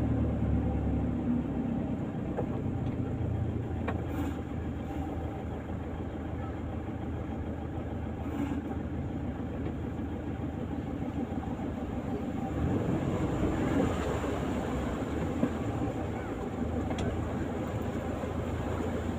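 A vehicle engine running steadily, a low hum under a wash of noise.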